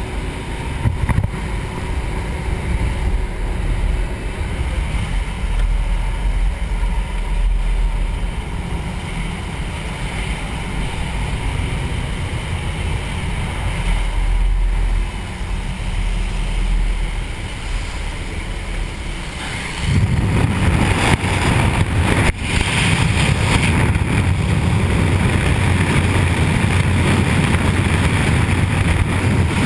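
Jump-plane engine and propeller drone inside the cabin with the door open, a steady low rumble. About twenty seconds in it gives way to a louder, fuller rush of wind on the microphone as the skydiver reaches the door and exits into freefall.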